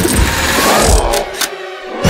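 Cartoon sound effect of a robot mouse's motor and tank treads running, a mechanical rumble with a few knocks about half a second apart.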